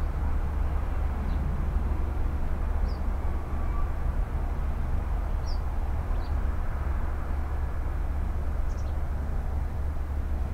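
Steady low outdoor rumble and hiss, with a few brief high bird chirps scattered through it.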